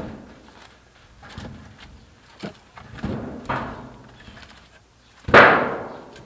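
Split firewood logs being set and knocked onto a woodpile: a string of wooden clunks, the loudest a little over five seconds in.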